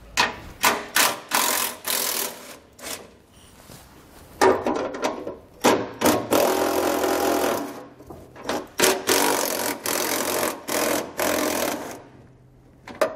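Hand-held power tool running a socket on the 13 mm nuts of a truck's exhaust heat shield, in short bursts at first and then in longer runs of a second or two, unthreading the nuts. It stops about a second before the end.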